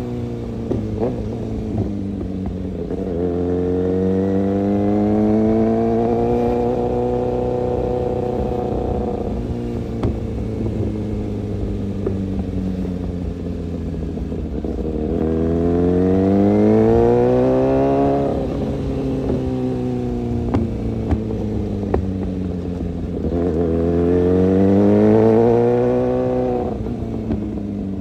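Kawasaki ZX-6R inline-four engine running, its revs climbing and falling back three times in smooth swells, each rise lasting a few seconds.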